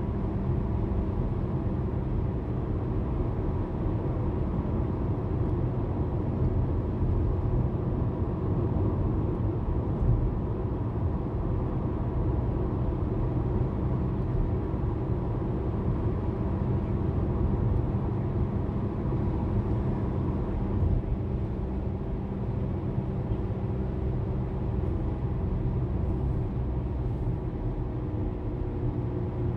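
Car driving steadily at cruising speed, heard from inside the cabin: a constant low rumble of tyres, road and engine with a faint steady hum, without change.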